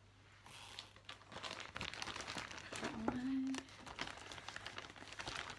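Crinkling and rustling of packaging being handled as a stitching project is put away, with a short hummed "mm" about three seconds in.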